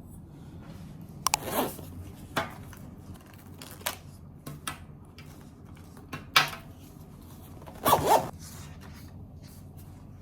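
Short bursts of rustling and light clicks from small objects handled at a desk, about six separate sounds over a low steady room hum.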